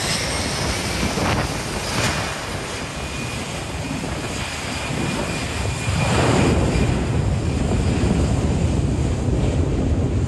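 Boeing 757 jet engines running up at the start of the takeoff roll: a steady whine over a low rumble, growing louder and fuller about six seconds in as takeoff thrust builds.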